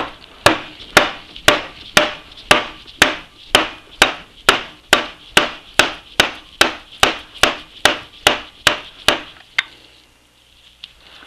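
Rubber mallet striking the end of an Atlas 10F lathe's headstock spindle about twenty times in a steady rhythm of roughly two blows a second, stopping near the end. The blows are meant to drive the stuck spindle forward through its bearings, and it is barely budging.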